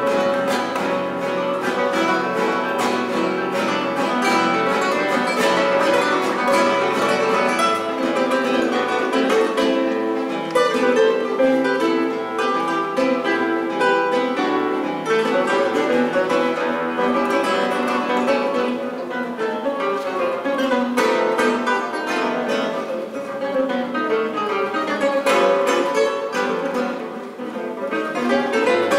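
Trio of nylon-string classical guitars playing Brazilian baião music together, a continuous stream of quick plucked notes and strums.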